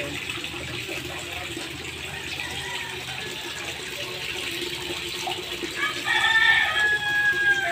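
Steady running water in a koi pond. About six seconds in, a loud, long held call of about a second and a half rises over it.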